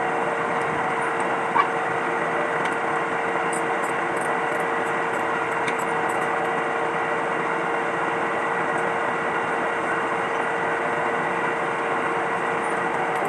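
A machine running steadily: a constant mechanical hum with a steady whine in it and a few faint clicks.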